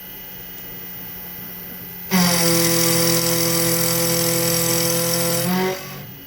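Machine tool cutting brass, with a steady whine and hiss. It is quieter at first, gets loud about two seconds in as the cut runs, and drops back shortly before the end.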